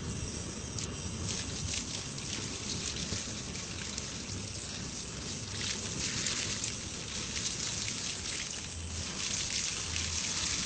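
Steady hissing rush of gas burning from the open valve of a cooking-gas cylinder, with faint crackles.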